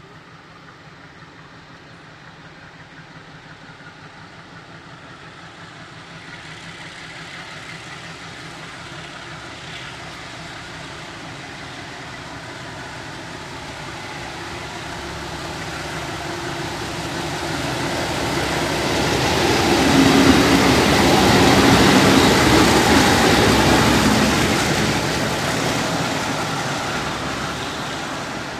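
Diesel-electric MLW locomotive at the head of a freight train, approaching with its engine running and growing steadily louder. The train is loudest about twenty seconds in as it draws close, and the sound then eases slightly.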